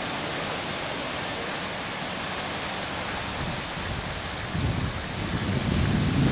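Steady outdoor wind hiss. From about four and a half seconds in, gusts buffet the microphone with an uneven low rumble that grows louder.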